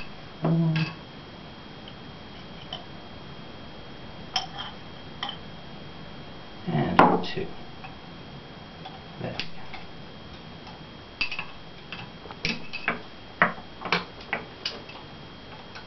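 Metal teaspoon clinking and tapping against a glass and a honey jar as honey is spooned into the glass: scattered light clicks, one louder clink about seven seconds in, and a quick run of taps near the end.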